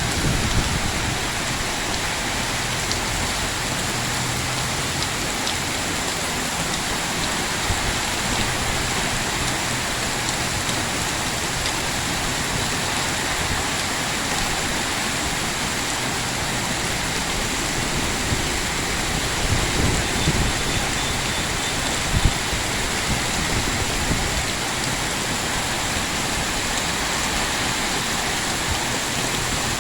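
Heavy rain pouring steadily, with a few short low rumbles and one sharp thump about two-thirds of the way in.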